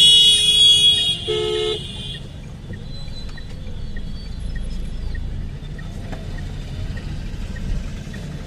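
Vehicle horns honking in town traffic. A loud, high-pitched horn blast lasts about the first two seconds and overlaps a short, lower beep. After that comes the steady low rumble of the car's engine and tyres, heard from inside the cabin.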